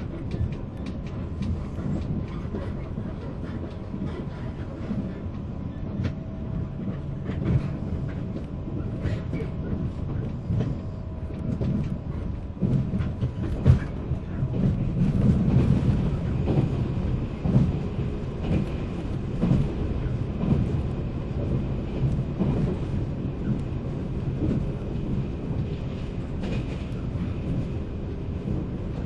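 Running noise inside a 485-series electric motor car: a steady low rumble of wheels on rail with scattered clicks from rail joints. It grows louder for a few seconds about halfway through.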